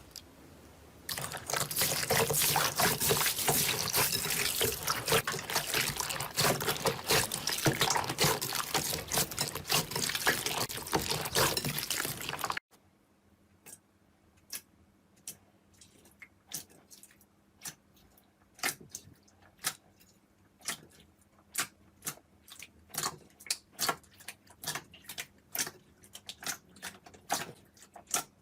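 Slime being squished and worked by hand: a dense run of wet crackling and squelching for about eleven seconds, then, after a sudden cut, quieter separate pops and clicks a few times a second.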